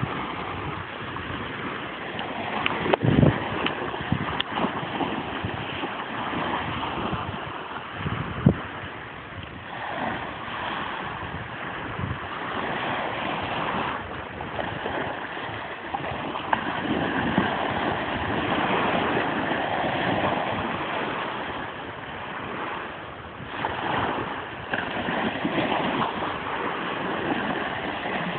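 Small waves washing onto a beach, with wind on the microphone and the wash swelling and easing every few seconds. Two sharp knocks or splashes stand out, about three seconds in and again about eight seconds in.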